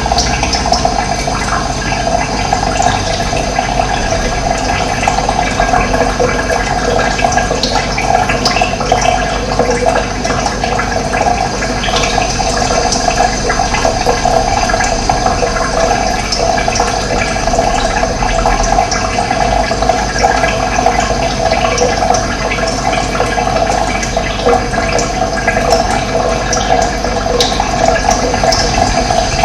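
Running water: a steady, continuous rush of flowing water.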